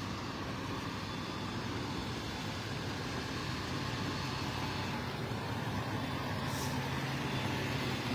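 A motor vehicle's engine running steadily, a low, even drone with a haze of noise over it.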